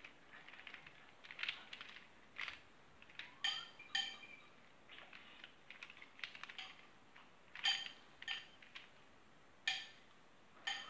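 Plastic Square-1 puzzle being turned by hand: its layers click and clack in irregular bursts, with a few sharper, ringing snaps as slices flip.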